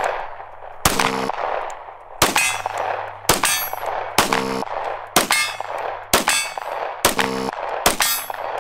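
Compact pistol fired at a slow, steady pace, about eight shots roughly a second apart. Three of the shots are followed a moment later by the short ring of a hit steel target.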